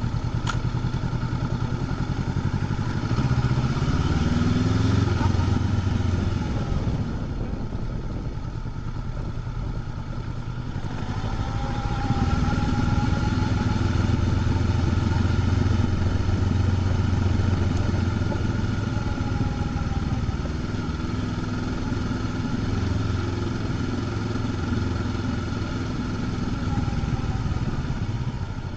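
Honda CB500X parallel-twin engine and stock exhaust under way, heard from the rider's position: its pitch rises as it accelerates about three seconds in, drops back quieter off the throttle around seven seconds, then picks up again about twelve seconds in and runs fairly steadily.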